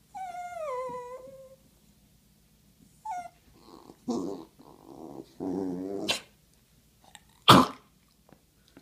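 Small dog vocalizing in excitement: a long whine falling in pitch, a short high yelp, then a run of grumbling growls, and one loud, sharp sound near the end.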